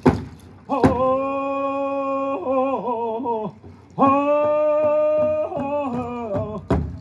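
First Nations group singing with drum: two drum strikes, then the drumming stops while the voices hold two long notes, each falling away in a wavering phrase, and the steady drumbeat comes back near the end.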